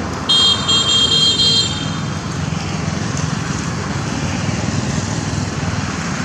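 Steady road traffic noise, with a vehicle horn sounding in a few short pulses for about a second and a half near the start.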